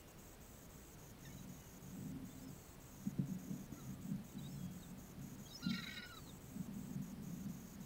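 Gulls calling overhead: faint scattered calls, then one clearer call a little before the end. Irregular low rumbles and thumps run underneath, loudest about three seconds in.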